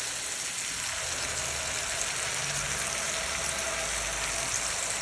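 Water poured in a thin stream into a hot pan of frying vegetables, with a steady sizzling hiss as it hits the pan.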